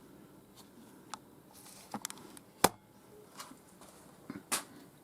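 Metal parts and tools being handled on a milling machine's rotary table: scattered light clicks and knocks, with one sharp knock about two and a half seconds in.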